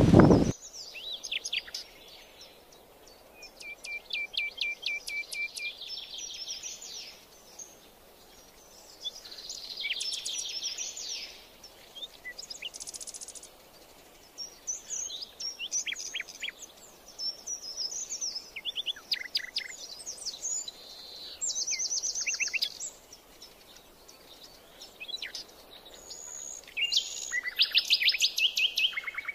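Several songbirds singing and calling in turn: high whistled sweeps, rapid trills and chirps in phrases a second or two long, every few seconds, over a faint steady background hiss. A brief loud noise cuts off in the first half second.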